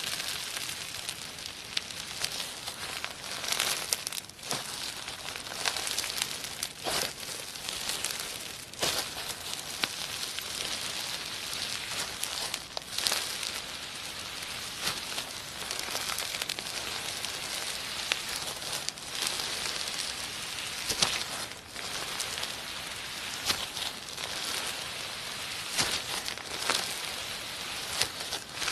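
Slime being mixed and squished, a continuous sticky crackling with many small clicks and pops.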